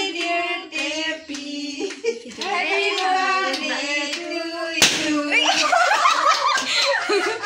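A small group of women singing a birthday song together while clapping their hands. About five seconds in there is one sharp smack, and the singing breaks up into excited, overlapping voices.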